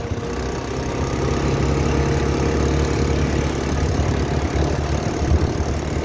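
Quad bike engine running steadily as it is ridden over sand, with a steady hiss over it.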